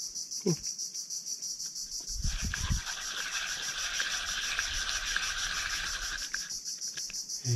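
Steady high-pitched, evenly pulsing chorus of insects. A second, lower buzzing call joins about two seconds in and stops abruptly a second before the end. A dull low thump comes just as it starts.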